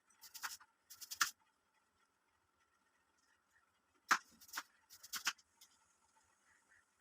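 Short scraping and clattering sounds of kitchen utensils being handled, in two pairs: one near the start and one about four seconds in.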